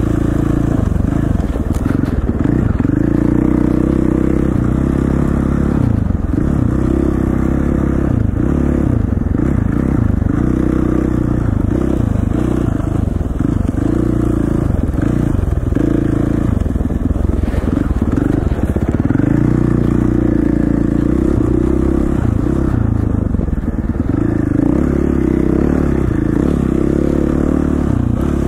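KTM 450 four-stroke single-cylinder dirt bike engine running under way, the revs rising and falling every few seconds as the throttle is worked.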